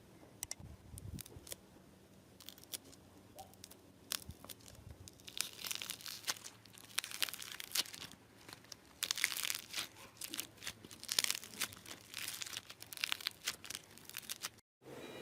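Slime being worked by hand, crackling and crinkling. There are a few sparse clicks at first, then dense crackling from about five seconds in. It cuts off abruptly just before the end.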